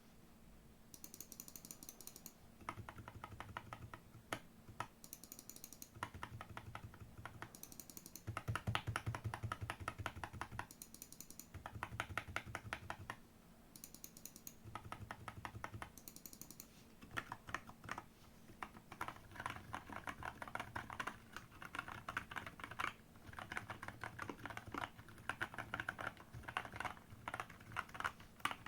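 Typing on a mechanical keyboard with JWK T1 Black switches and XVX keycaps: quick runs of key clicks and clacks in bursts of a second or few, with short pauses between them.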